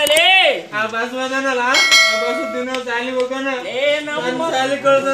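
Drawn-out voices crying out, sweeping widely up and down in pitch without clear words. About two seconds in, one metallic bell-like strike rings briefly over them.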